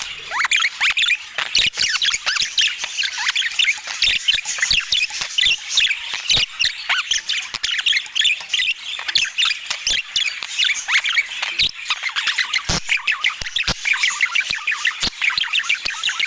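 Budgerigars chattering without pause in quick, high warbling chirps, with short sharp clicks scattered throughout.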